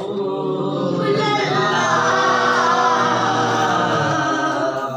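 A man's solo voice singing a naat unaccompanied, drawing out one long wavering phrase that breaks off for a breath near the end.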